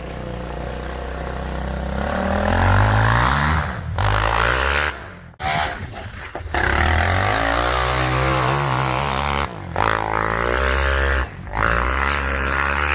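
Off-road vehicle engine revving and accelerating on snow, its pitch climbing twice, with the sound briefly cutting out several times.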